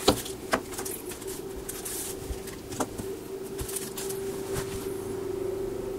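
A few light clicks and knocks as a phone charger and wired headset are set down on a table, over a steady low hum.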